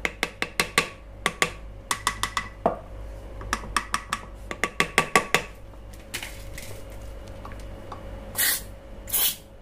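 Quick run of light taps with a tool handle on the aluminium valve block of a motorcycle ABS hydraulic unit, done to set up a vibration that frees a jammed valve inside while sparing the pump motor's magnet. Near the end, two short hisses of an aerosol spray blown into the block's ports.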